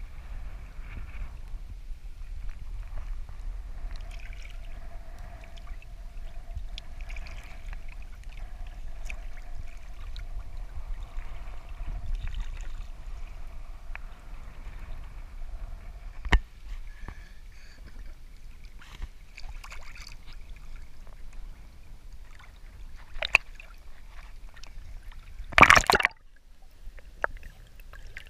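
Shallow seawater sloshing and gurgling around the waders, over a low steady rumble. About 26 seconds in comes a loud, sudden splash as the camera is plunged underwater.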